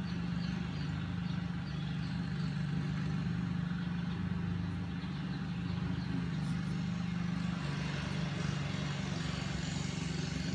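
A steady low mechanical drone, like a machine running, is the loudest sound throughout. Faint high peeps from Muscovy ducklings come in the first two seconds.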